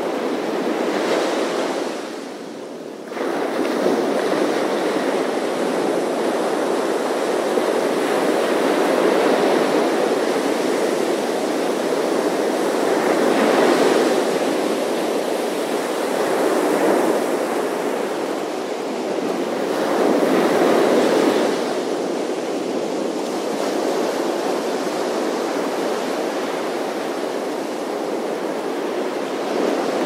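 Ocean surf breaking on a sandy beach: a continuous wash of water that swells each time a wave breaks and runs up the sand, every few seconds. It dips briefly about two seconds in.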